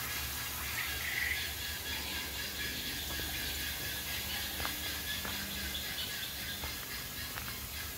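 Outdoor forest ambience: a steady hiss with a low rumble beneath, a brief bird chirp about a second in, and a few faint scattered ticks and short calls after.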